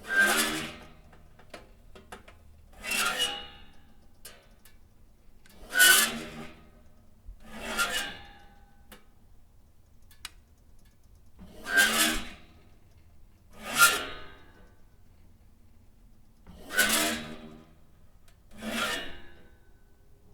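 Screechy toaster oven door, metal squealing on its hinges: eight short harsh screeches in pairs, each pair about two seconds apart, with quiet gaps between.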